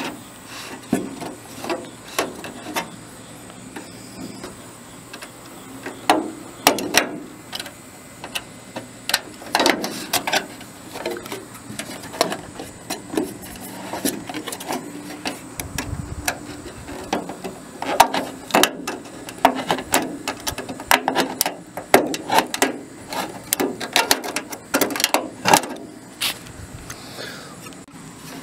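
Tin snips cutting and trimming the thin aluminium gutter bottom for a downspout outlet, with irregular snips, clicks and rattles of the sheet metal being handled, and a dull thud about halfway through.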